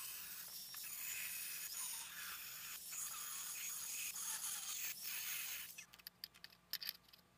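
Angle grinder with a thin cutoff wheel cutting through steel plate, a steady high hiss. It stops about six seconds in, followed by a few light clicks and taps.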